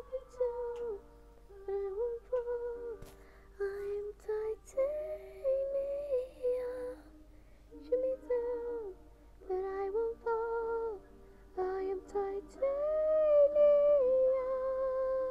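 A sung duet with musical accompaniment, a woman's voice to the fore, played through a television's speakers. The phrases come one after another, with a louder held note near the end.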